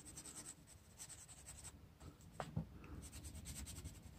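Felt-tip marker nib scratching faintly on sketchbook paper in short runs of quick strokes, with two soft taps a little after halfway.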